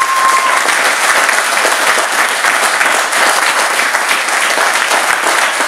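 An audience applauding steadily, many hands clapping at once, with a single high held call from the crowd trailing off in the first half-second.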